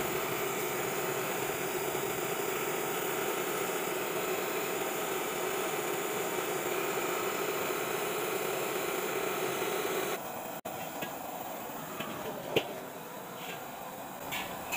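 Gas burner running full under a new stainless steel wok being heated for seasoning: a steady rushing hiss. About ten seconds in the level drops abruptly to a quieter rush, with a few light knocks and one sharper clank.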